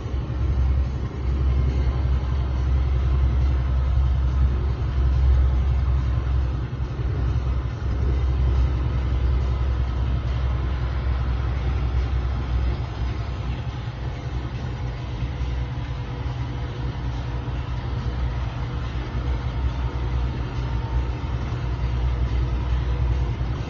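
Steady low drone of an Iveco truck's diesel engine with tyre noise on the wet road, heard inside the cab while driving at speed; it eases a little about halfway through.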